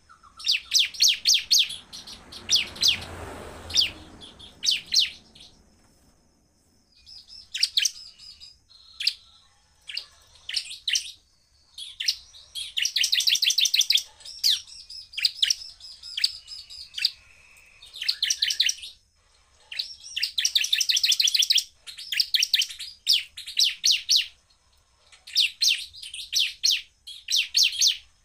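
Bar-winged prinia (ciblek) singing in full voice: bursts of very fast, sharp, high-pitched chipping trills, the rapid-fire 'tembakan' song, broken by short pauses.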